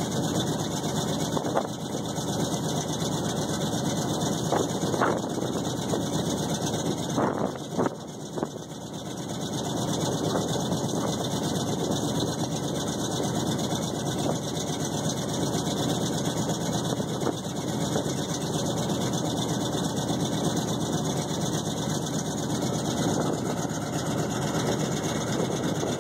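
3/4-ton Chevy pickup engines running steadily, with a few short knocks in the first eight seconds.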